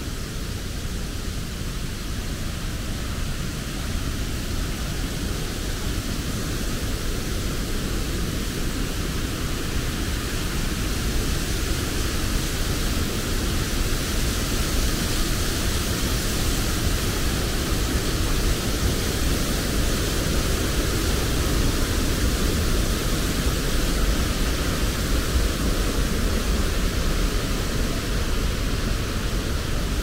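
Steady rush of a fast-flowing river over white-water rapids, growing louder around the middle as the path comes close to the water.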